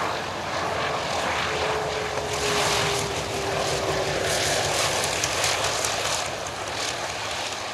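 Douglas AD-4N Skyraider's 18-cylinder twin-row radial engine running throttled back as the plane lands and rolls out, with an uneven crackle through the middle of the roll.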